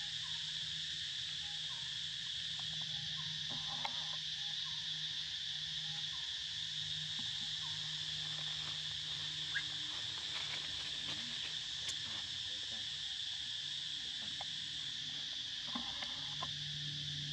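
Forest insect chorus: a steady, continuous high buzzing, over a lower drone that comes and goes, with a few faint ticks.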